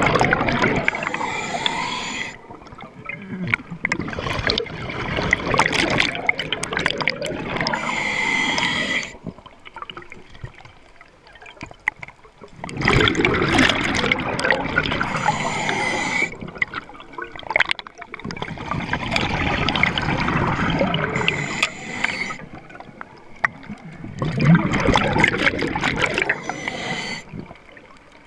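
Scuba regulator exhaust heard underwater: exhaled bubbles rush out in five loud spells of about three seconds each, one every five to six seconds, with quieter breaths between them.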